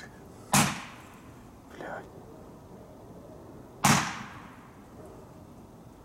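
Two loud shots from a 20-shot consumer firework battery, about three seconds apart, each with a short fading echo.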